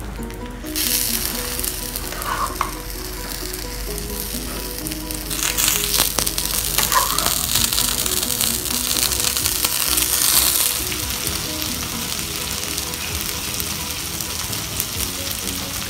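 Stir-fried minced pork, prawns and sauce sizzling as they are spooned onto a hot hotplate covered with egg. The sizzle swells loudest from about five seconds in to about eleven seconds, then settles to a steady hiss. Faint background music plays underneath.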